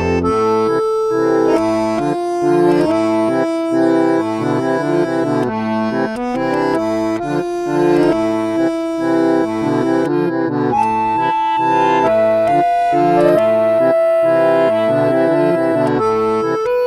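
Instrumental accordion music: a slow melody of long held notes over steady chords.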